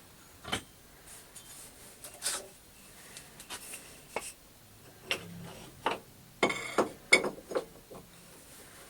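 Scattered clicks and knocks with a short rattle about six and a half seconds in: tools and parts being handled at a metal lathe while the lathe is not running.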